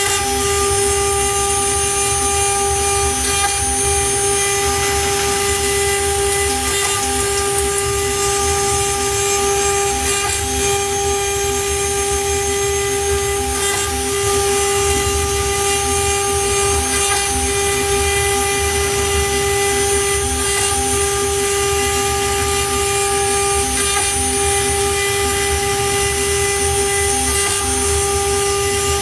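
Woodworking CNC router spindle running with a small engraving bit, carving a pocket into a wood panel: a steady whine over the noise of the cut.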